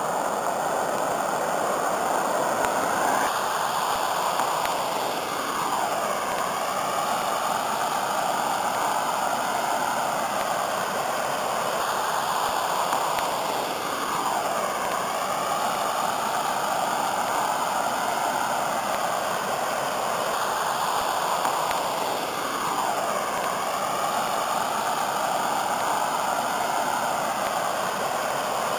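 Flash-flood water pouring over an earth bank as a muddy waterfall and churning in the pool below: a steady rush of falling water.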